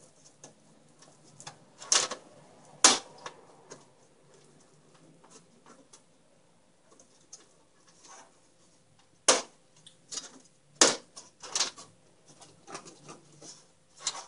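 Computer parts being handled and fitted into a PC case: scattered light clicks and rattles, with a handful of sharp knocks about two, three, nine and eleven seconds in.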